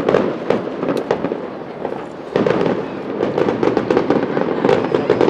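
Aerial fireworks shells bursting overhead: a few separate bangs in the first second, then a sudden louder burst about two seconds in, followed by dense crackling.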